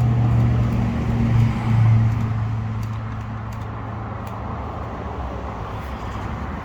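A small electric motor hums steadily on the motorcycle while it is being primed before its first start. The hum swells briefly and fades out about two and a half seconds in, leaving a steady background hiss with faint ticks.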